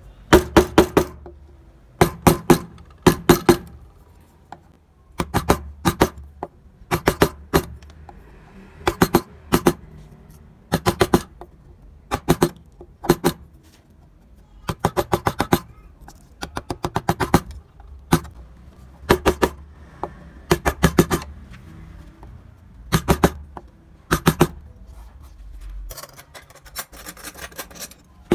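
Hand-pushed carving gouge cutting into wood in short strokes. Each stroke gives a quick run of crisp clicks and crackles, about one stroke every second or two.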